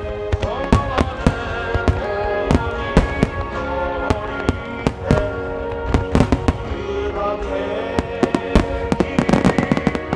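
Aerial firework shells bursting one after another, many sharp bangs, with music playing beneath. The bangs come thickest in a rapid cluster near the end.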